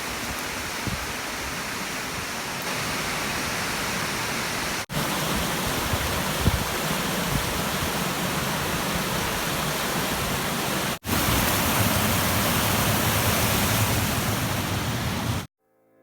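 Waterfall, water rushing in a steady dense hiss, broken by two sudden cuts about five and eleven seconds in and stopping abruptly near the end.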